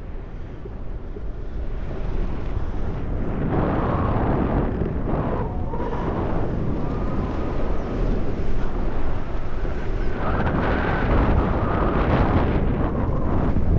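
Airflow buffeting the 360 camera's microphones while flying under a BASE parachute canopy: a steady wind rumble that grows louder about three to four seconds in.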